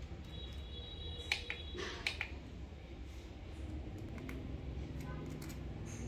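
Sharp clicks and light ticks of test-probe tips being pressed onto a battery cell's metal bolt terminals, two clearer clicks in the first two seconds, over a low steady hum.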